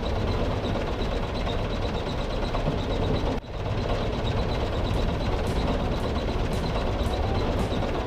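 A steady engine-like vehicle rumble, broken briefly about three and a half seconds in.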